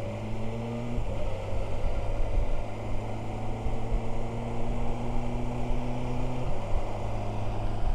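BMW S1000XR's 999cc inline-four engine pulling in second gear as the bike gathers speed, over road and wind noise. Its note falls away about six and a half seconds in.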